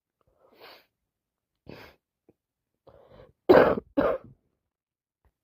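A sick person coughing: a few quiet short coughs, then two loud coughs in quick succession about three and a half seconds in.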